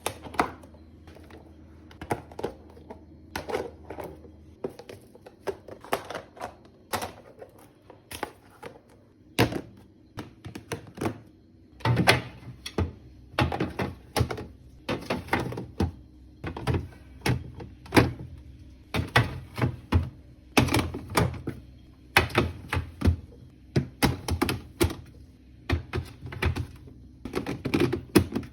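Storage containers and kitchen items being handled and set down during organizing: an irregular run of sharp clacks and knocks, sparse at first and coming thick and fast from about twelve seconds in.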